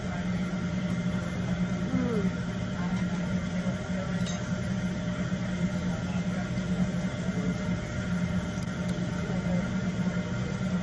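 Steady low mechanical hum, with a short click about four seconds in.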